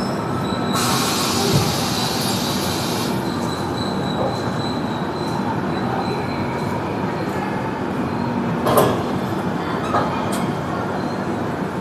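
Passenger train rolling slowly with a steady rumble and a thin, high wheel squeal. A burst of hiss comes about a second in, and there are two sharp clanks near the end.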